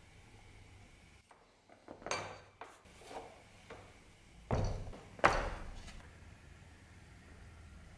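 Heavy steel sledgehammer heads set down on a plastic-covered workbench: two heavy thuds a little under a second apart, the second the louder, after a few lighter clicks and knocks of small tools handled on the board.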